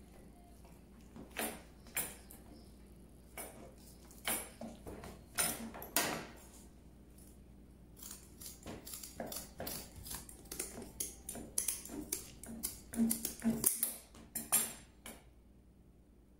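Metal kitchen utensils clicking and clinking: a few sharp clicks about a second apart, then a quicker, irregular run of ticks in the second half.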